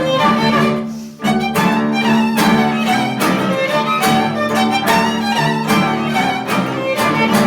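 Music: bowed strings, led by violin, playing detached, accented notes, with a brief drop about a second in. It fades out at the very end.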